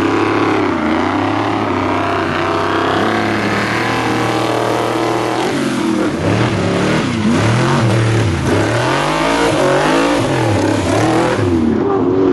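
Off-road race vehicle's engine running hard at high revs, fairly steady for the first few seconds, then rising and falling again and again from about halfway on as the throttle comes on and off.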